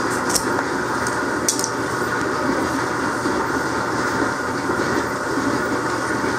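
Steady mechanical rumble with a continuous rattle from a running machine. A few short crisp clicks come in the first two seconds.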